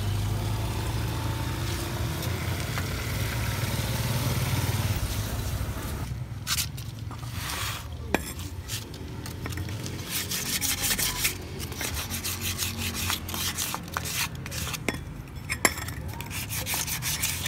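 A low vehicle hum for the first five or six seconds, then hand work on metal parts: scraping and rubbing broken by scattered sharp clicks.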